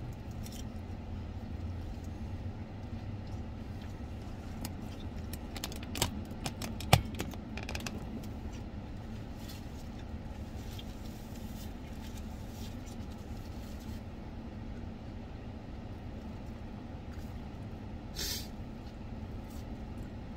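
Eating sounds from a salad: chewing and a fork clicking against a plastic salad container, with two sharp clicks about six and seven seconds in and a short rustle near the end, over a steady low hum inside a car.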